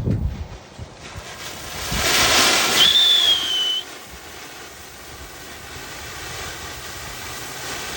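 Killer Bee fireworks fountain burning, with a low thump at the start. About two seconds in it breaks into a loud rushing hiss, with a high whistle lasting about a second, then settles to a quieter hiss that slowly builds again.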